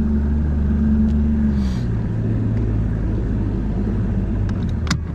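Bass boat's outboard motor running under way: a steady low drone whose note changes about two seconds in. A single sharp click near the end.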